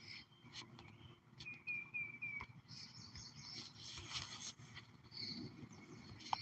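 Faint outdoor ambience with small birds chirping: a quick run of four short chirps a little after the first second, and scattered chirps and ticks over a low background rumble.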